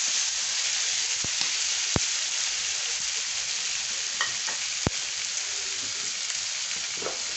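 Liver, onion and tomato sizzling steadily in oil on an iron tawa, with a few sharp clicks about 1, 2 and 5 seconds in.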